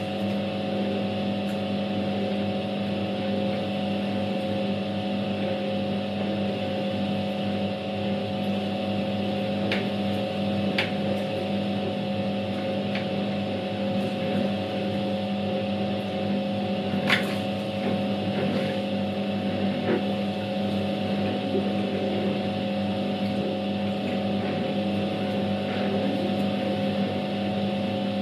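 Światowit M4 impeller washing machine running a wash: its EDA SED-110-4 capacitor-run motor hums steadily while the impeller churns the water and laundry. A few short clicks, the loudest about two-thirds of the way through.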